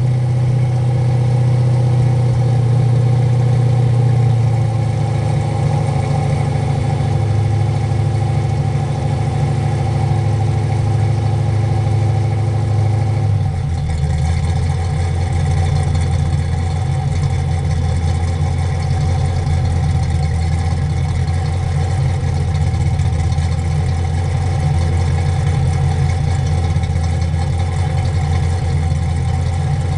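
331 cubic-inch stroker small-block Ford V8 idling through shorty headers, an off-road H-pipe and Flowmaster mufflers, a steady low exhaust note. The idle speed drops a step about a quarter of the way in and again about halfway, then holds steady.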